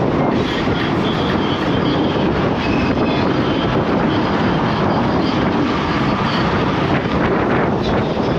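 Steady wind rush on the camera microphone and road rumble from an electric scooter riding at speed.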